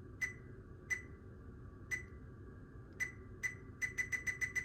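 Button presses on a Zoom H1essential recorder while setting its clock, each giving a short, high ticking beep. A few come spaced about a second apart, then a quick run of rapid presses near the end as a value is scrolled.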